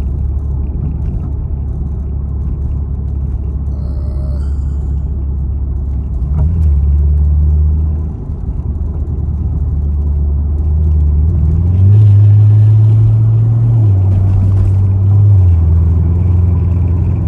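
Chevrolet Camaro SS's 6.2-litre V8 with an axle-back muffler delete, heard from inside the cabin while driving: a loud, low exhaust drone. Its pitch climbs as the car pulls, about six seconds in and again near twelve seconds, and drops back in between.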